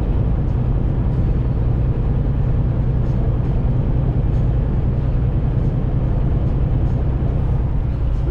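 Semi truck cruising on the highway, heard inside the cab: a steady low diesel engine drone mixed with road and tyre noise.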